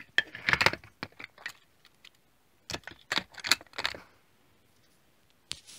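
Small die-cast Hot Wheels cars clicking and clattering against one another as they are handled, in two quick flurries of clicks and then a single click near the end.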